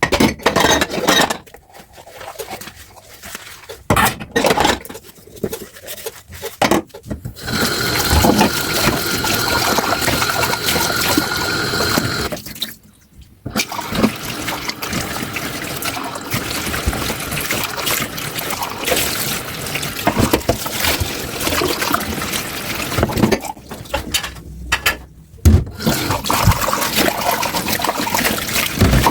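Kitchen tap water running into a sink while dishes are rinsed, after a few seconds of dishes clinking and knocking. The water stops briefly twice and starts again, with a faint steady whistle in the first run.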